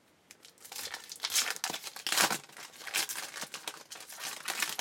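A foil trading-card pack wrapper being torn open and crinkled by hand. The crinkling comes as an uneven run of rustles, loudest about one and two seconds in.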